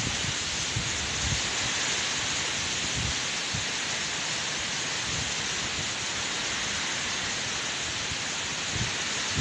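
Typhoon wind and rain: a steady rushing hiss, with a few low thumps of wind buffeting the microphone, mostly in the first second or so.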